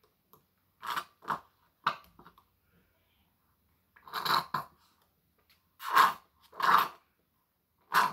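Someone slurping through a plastic straw from a small cup: about seven short, noisy sucks with pauses between, the longest a little after the middle.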